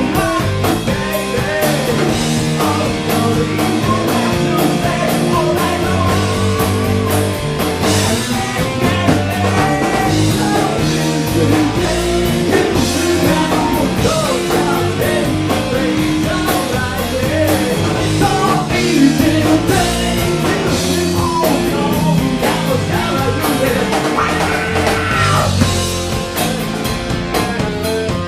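Live rock band playing, with electric guitar, bass and drums over a steady beat, and a lead line wavering in pitch through the middle.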